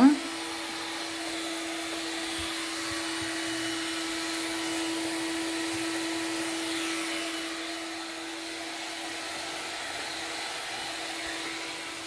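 Electrolux Ergorapido cordless stick vacuum running steadily on high power: an even motor hum over the rush of suction air.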